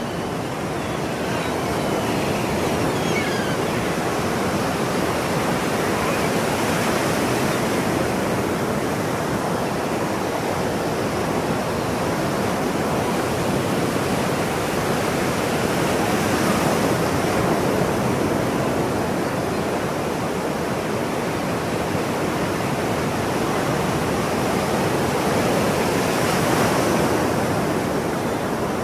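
Ocean surf: a steady wash of waves, swelling as a wave breaks about every ten seconds.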